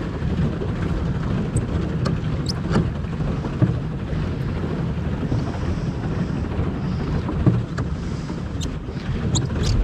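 Pedal boat's paddle wheel churning and splashing water as it is pedalled along, under steady wind buffeting the microphone, with scattered small splashes and knocks.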